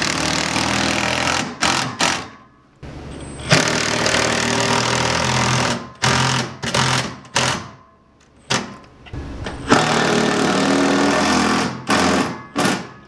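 Cordless impact driver hammering as it drives screws fastening a metal bed rack to a pickup's bed rail. It runs in three long pulls of about two seconds each, near the start, about four seconds in and about ten seconds in, with several short blips of the trigger between them.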